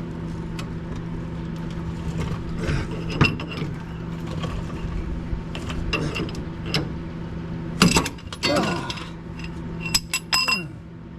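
Wrench and socket working on seized bolts: ratchet clicking and metal clinking, with louder knocks about eight and ten seconds in, over a steady low hum.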